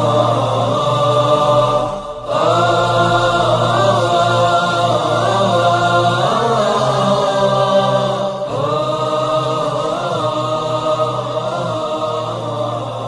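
Emotional background music of sustained, wordless choir-like voices in a chant style over a steady low drone. The voices hold long notes and glide to new pitches, with brief breaks about two seconds in and again about eight and a half seconds in.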